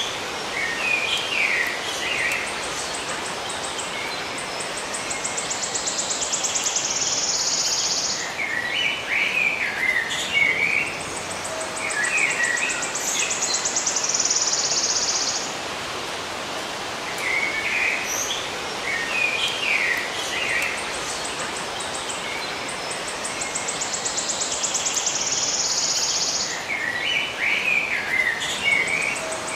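Songbirds chirping in short clustered phrases, with a high, rapid buzzing trill of a few seconds coming back about every nine seconds, over a steady background hiss of outdoor ambience.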